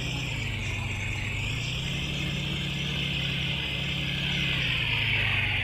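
A steady engine hum with a continuous hiss above it that grows a little louder near the end.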